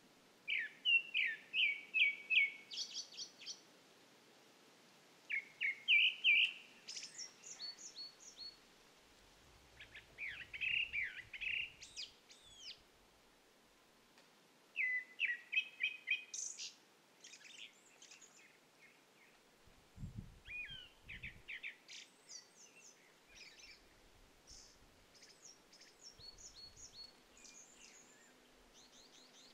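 Grey-backed thrush singing: short phrases of clear whistled notes, often repeated several times in quick succession, each phrase lasting a couple of seconds and followed by a pause of a few seconds.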